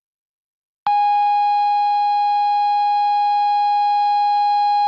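Television colour-bars test tone: a single steady beep that starts abruptly about a second in and holds unchanged at one pitch.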